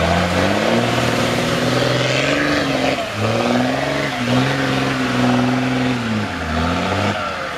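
A 4x4 trial truck's engine revved hard under load as the truck churns through muddy water and climbs out of the pit. The revs drop off sharply about three seconds in, rise again, and ease down near the end.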